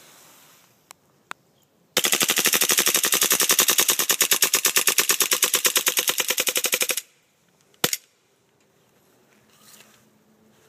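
Airsoft Glock 18C pistol firing one long full-auto burst, a rapid even stream of shots lasting about five seconds, followed by a single sharp click.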